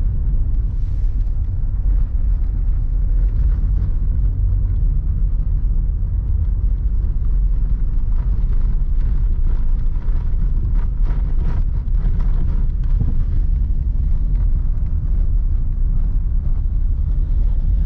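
Steady low rumble of a truck driving on a snow-packed road, heard from inside the cab: engine and tyre noise.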